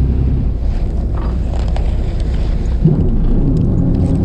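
A fishing boat's engine running steadily while the boat is underway, a continuous low drone. Near the end the drone settles into a steadier, higher hum.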